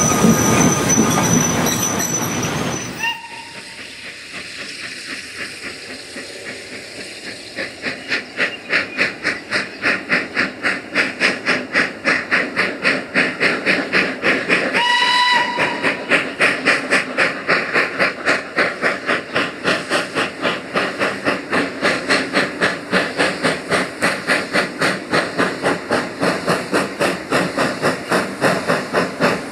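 A steam tank engine hissing as it passes close, then a saddle-tank steam locomotive working hard with a train of wagons: its exhaust beats build up into a steady, even rhythm of about three a second. About halfway through, its steam whistle sounds once for about a second.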